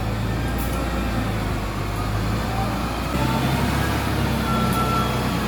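Diesel engine of an earthmoving machine working sand, running steadily and picking up a little in load and loudness about three seconds in.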